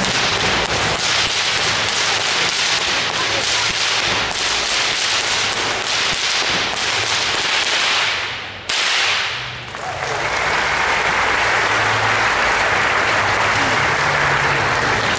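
Two whips cracked in a fast, unbroken two-handed routine, several cracks a second for about nine seconds, ending with a louder last crack. Audience applause follows.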